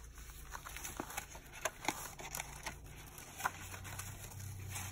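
Paper pages of a handmade junk journal rustling and crinkling, with scattered soft clicks and taps as a fold-out flap is opened and handled, over a faint low hum.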